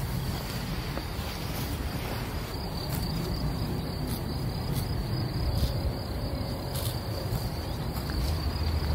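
A steady, high-pitched insect trill over a low rumble, with scattered short crunches of horses cropping grass.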